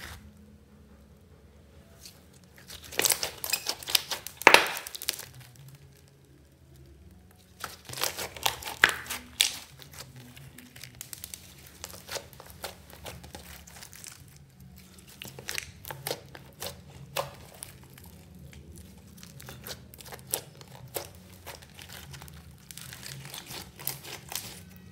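Hands kneading, folding and pressing a soft pink slime, giving bursts of crackling and clicking in several clusters a few seconds apart, with quieter squishing between them.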